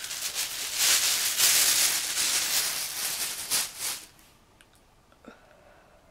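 Vapor being drawn out of a Volcano vaporizer's plastic balloon bag through its valve mouthpiece: a steady airy hiss with the bag crinkling, which swells louder and more crackly from about a second in, then stops about four seconds in, the bag nearly empty.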